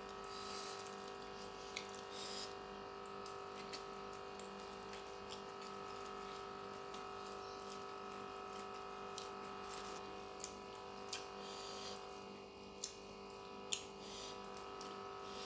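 Quiet eating sounds of a person eating by hand: soft chewing with about six sharp wet mouth clicks and smacks, scattered and loudest near the end. Under them runs a steady background hum.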